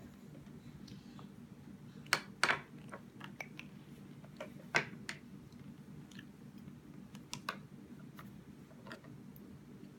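A baby spoon knocked and tapped on a tabletop by an infant: a handful of sharp, irregular clicks and taps, the loudest about two and five seconds in, over a steady low hum.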